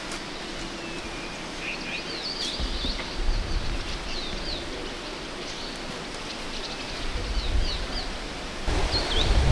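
Small birds chirping in short, quick swooping notes over a steady outdoor hiss, with low rumbles about three seconds in and again near the end.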